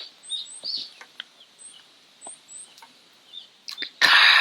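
Small birds chirping: a run of short, high, upward-flicking chirps with softer calls beneath, and a few faint clicks. Near the end a loud breathy rush of noise cuts in.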